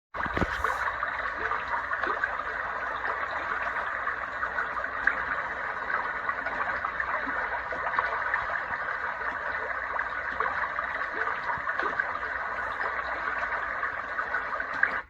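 AFEXOA sunrise alarm clock's sound machine playing a white-noise track through its small built-in speaker: a steady hiss with a fine crackle, like running water.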